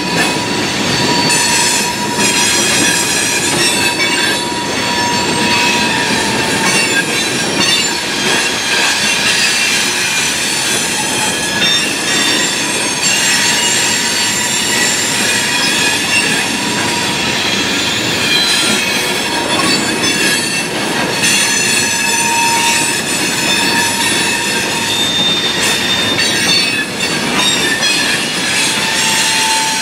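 Freight train of open-top coal hopper cars rolling past, with a steady rumble of steel wheels on rail and continuous high-pitched wheel squeal.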